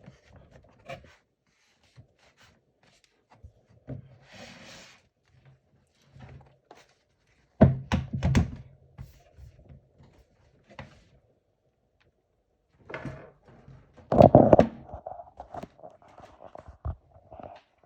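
Laptop bottom cover being pressed and snapped into place on the chassis: scattered clicks, knocks and rubs, loudest about 8 seconds in and again about 14 seconds in.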